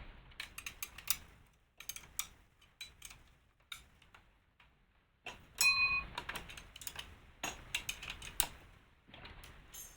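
17 mm ratchet wrench clicking in short runs as the crane's mounting bolts are tightened, with a brief ringing metal clink about six seconds in.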